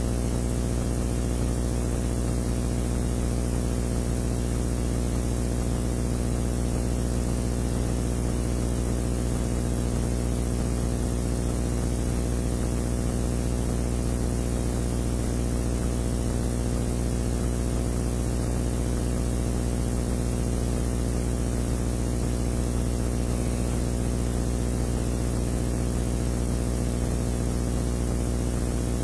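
A steady, unchanging low hum with a layer of hiss over it, picked up inside the stationary rally car.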